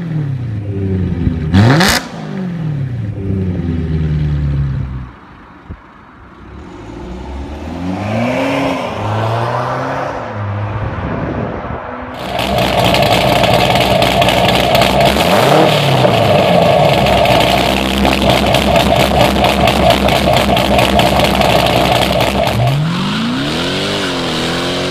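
BMW E92 M3's V8 with an M Performance exhaust revving and falling back. Then a BMW F10 520d diesel with a custom exhaust revving up and down. From about twelve seconds in comes a Dodge Charger R/T Daytona's V8 held at high revs in a burnout, rear tyres spinning with a steady screech; it cuts off near the end and the engine revs once more.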